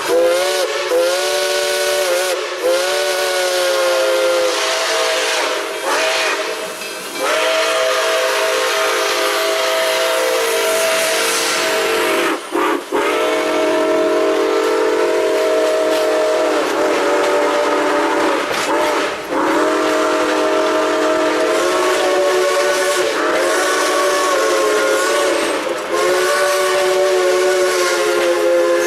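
Steam locomotive's chime whistle blowing a chord of several notes in long blasts with short breaks between them, over a loud steady hiss of escaping steam.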